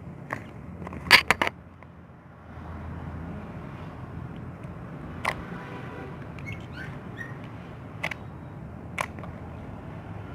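Thick clear slime being handled, giving sharp pops: a quick run of three about a second in, then single pops spread through the rest, over a steady low background hum.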